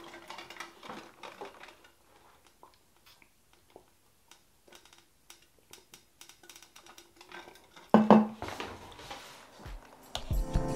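Quiet handling sounds: light clicks and knocks as a clear plastic box and a drink tumbler are moved about, with a louder clunk about eight seconds in. Music with a drum beat starts just before the end.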